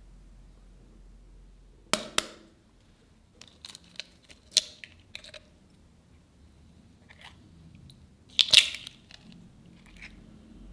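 Eggshells being cracked by hand against a glass bowl. Two sharp taps come about two seconds in and a louder cluster of cracks about eight and a half seconds in, with small clicks and crunches of shell being pulled apart in between.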